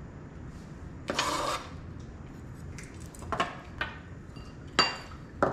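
A chef's knife scraping chopped cilantro into a small glass bowl, heard as a short scrape about a second in. Then come a few light clinks and taps of small glass bowls on a countertop, one near the end ringing briefly.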